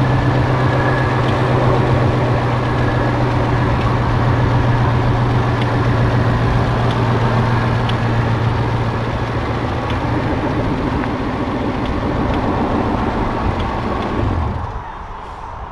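A 2016 twin-turbo Mustang's engine running steadily at low speed, a constant low hum that dies away about fourteen and a half seconds in.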